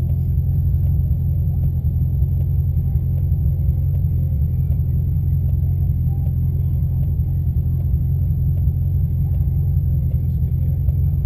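C6 Corvette Z06's 7.0-litre LS7 V8 idling steadily, a deep even rumble heard from inside the cabin.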